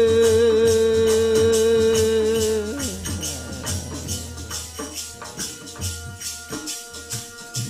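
A long held sung chant note of Sikh naam simran slides down and fades about three seconds in, while jingling hand percussion keeps a steady beat.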